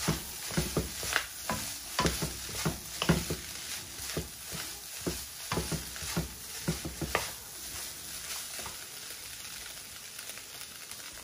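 Wooden spoon stirring and scraping chopped turkey in a sizzling frying pan, with quick knocks and scrapes against the pan. The stirring stops about seven seconds in, leaving a fainter steady sizzle.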